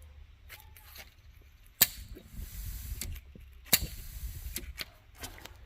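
Clothes-dryer gas valve solenoid clicking as it opens and shuts: two sharp clicks about two seconds apart, with a few fainter clicks and a faint hiss.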